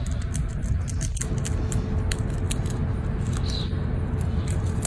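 Steady low rumble on the phone's microphone, with scattered sharp ticks and clicks over it and a faint steady hum coming in about a second in.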